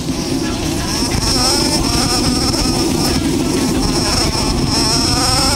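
Dirt bike engine heard from the rider's helmet camera, revving as the bike pulls away and accelerates. The pitch rises and drops back several times as it shifts up through the gears.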